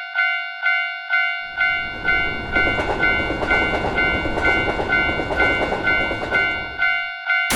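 Japanese level-crossing bell ringing its repeated 'kan-kan' about twice a second, while a train passes with a loud rushing rumble from about a second and a half in. The train noise cuts off abruptly near the end.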